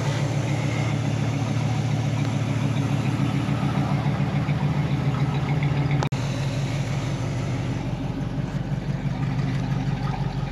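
A 1967 Chevrolet Camaro's engine idling steadily and smoothly, with no shaking or rattling. The sound drops out for an instant about six seconds in.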